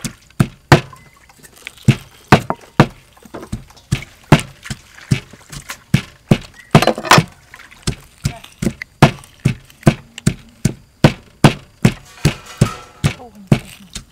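Sharp knocks in a steady rhythm, about two or three a second, pausing briefly about a second in.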